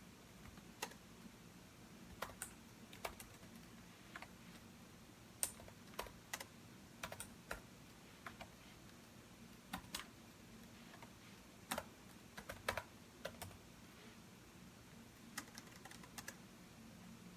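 Computer keyboard typing: intermittent keystrokes, single presses and short quick runs with pauses of a second or so between them, as someone composes text.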